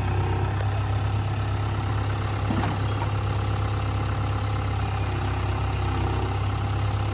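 Mini excavator engine running steadily with an even low hum.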